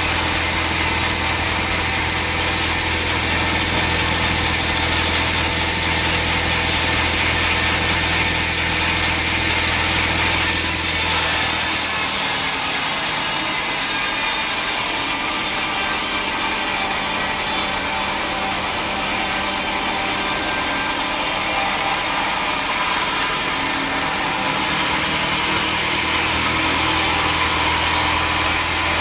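Sawmill machinery running steadily, with a saw cutting through a teak log: a continuous hiss of sawing over a low mechanical hum. The low hum drops away about twelve seconds in and comes back near the end.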